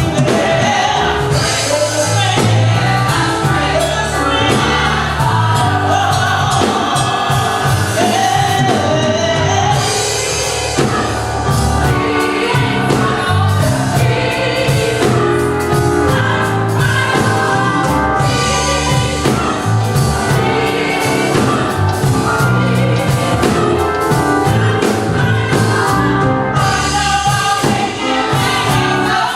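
Gospel choir singing with band accompaniment: sustained sung lines over a steady bass and drum beat.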